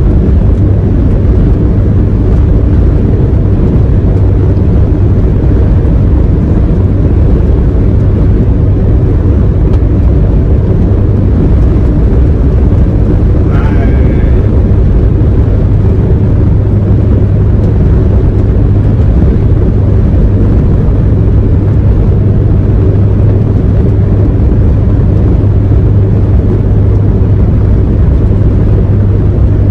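Truck engine and road noise droning steadily inside the cab while cruising at highway speed, a deep unbroken rumble. A short rising chirp comes about halfway through.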